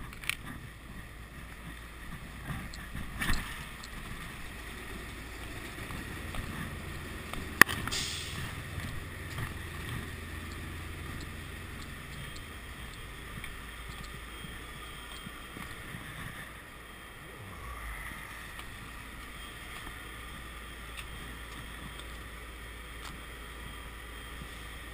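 Steady low rumble of idling semi-truck diesel engines, broken by a few sharp clicks, the loudest about a third of the way in.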